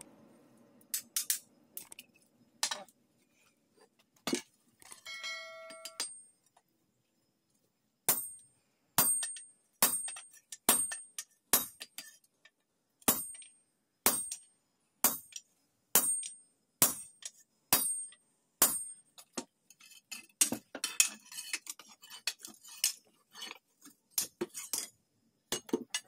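Hammer blows on hot spring steel on an anvil, about one a second, each with a short high metallic ring. The blows come faster and less evenly in the last several seconds.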